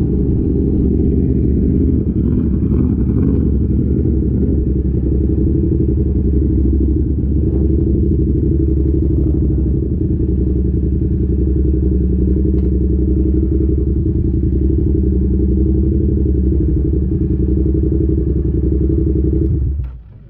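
Yamaha YZF R7's 689 cc parallel-twin engine through an Arrow exhaust, running under way at a steady engine speed. The sound cuts off abruptly near the end.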